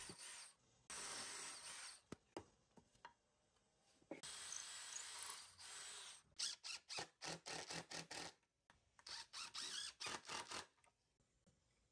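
DeWalt Atomic 20V cordless drill boring pilot holes into a wooden block: two longer runs, then a string of short start-stop bursts.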